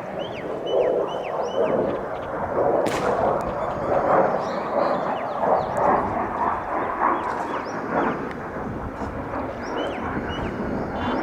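Military fighter jet's engine heard loud with a rough, crackling rumble, and small birds chirping faintly through it.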